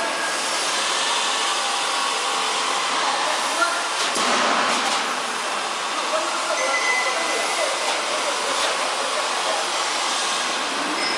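C/Z purlin roll forming machine running, with steel strip feeding through its forming rollers: a steady mechanical noise.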